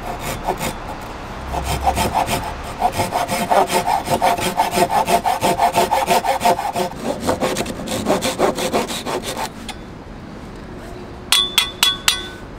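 Fine-toothed hand saw cutting through a 2×4 board in quick back-and-forth strokes, about two or three a second, with a ringing tone over the strokes. The sawing stops about nine seconds in, and a few sharp clicks with a ringing note follow near the end.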